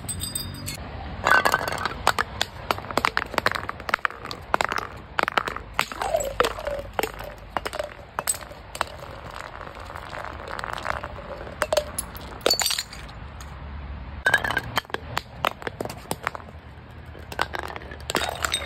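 Glass bottles smashing on concrete steps one after another, each crash followed by clinking and tinkling of shards, with many sharp impacts in clusters.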